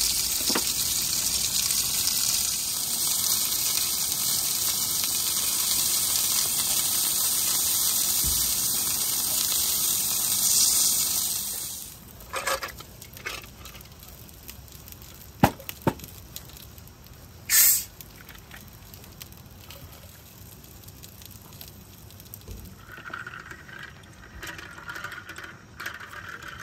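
Sliced pork sizzling in a frying pan, a steady loud hiss that stops abruptly about twelve seconds in. After that it is much quieter, with a few sharp clicks and a brief hiss.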